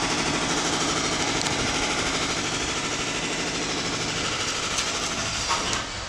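Jackhammer hammering in a fast, steady run, breaking up brick and concrete in a building's demolition; it stops near the end.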